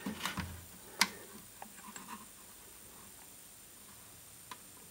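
A few small clicks and taps as multimeter probes are handled and touched onto a TV circuit board, with one sharper click about a second in, over faint room tone.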